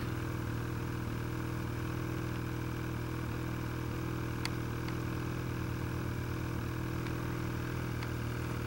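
A snowmobile engine idling steadily, a low even drone that holds one pitch, with a few faint clicks over it.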